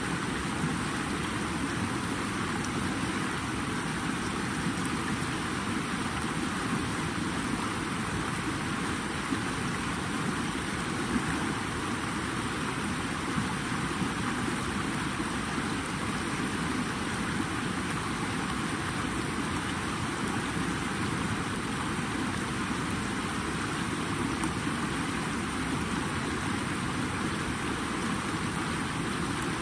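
Flowing water, a steady even rushing with no breaks.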